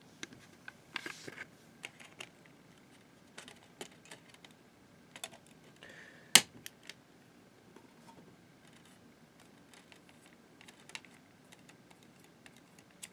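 Light plastic clicks and taps as DVDs are handled in a plastic multi-disc case, with one sharp click about six seconds in as a disc is pressed off its centre hub.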